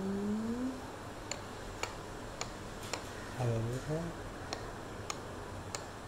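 African grey parrot making two short voice-like mimicked sounds, the first rising in pitch at the start and the second, wavering, about halfway through. Between and after them comes a run of faint sharp clicks, roughly two a second.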